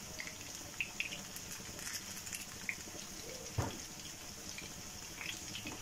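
Batter-coated fish pieces shallow-frying in hot oil: a faint, steady sizzle with scattered small pops and crackles, and a single soft knock about three and a half seconds in.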